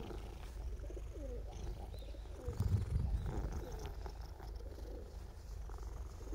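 Ginger cat purring with a continuous low rumble, louder for a moment about two and a half seconds in. Pigeons coo at intervals over it.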